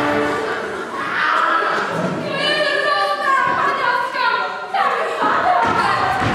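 A woman's loud, high voice in drawn-out calls, with a few thumps.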